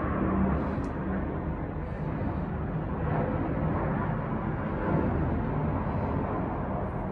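Steady low rumble and hiss of background noise.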